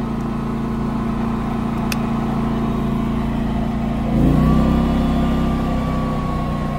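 Predator 11,500 W tri-fuel inverter generator running steadily on propane. About four seconds in, its engine speeds up and gets louder as the EV charger starts drawing load. A single click comes about two seconds in as the charging plug seats in the port.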